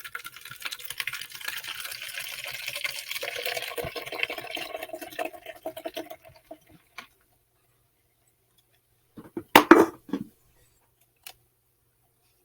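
Can of hard seltzer poured into a cup, the carbonated liquid splashing and fizzing for about six seconds, with a steady gurgling tone as the cup fills over the last few seconds of the pour. About nine and a half seconds in comes a short loud sound, then a faint click.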